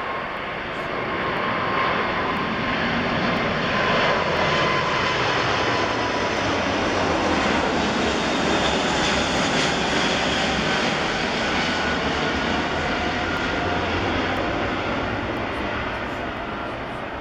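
Engines of an Etihad Airbus A380 (four Engine Alliance GP7200 turbofans) running at takeoff power as the jet climbs out overhead. The roar swells over the first few seconds and eases toward the end as it climbs away, with a thin whine running through it in the first half.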